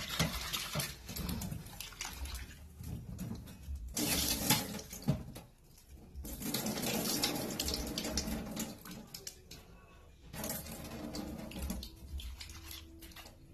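Tap water running and splashing into a bowl as raw fish and shrimp are given a final rinse, coming and going in several spells.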